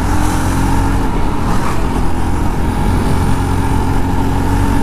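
Jawa Perak motorcycle's single-cylinder engine running at steady revs while the bike is ridden, with wind rushing over the microphone.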